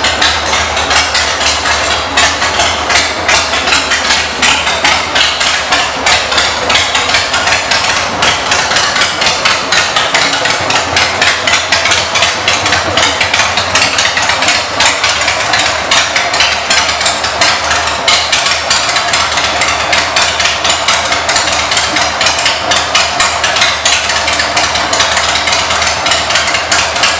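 1998 Harley-Davidson Sportster 1200's air-cooled Evolution V-twin idling through aftermarket exhaust pipes, a loud rapid pulsing that holds steady.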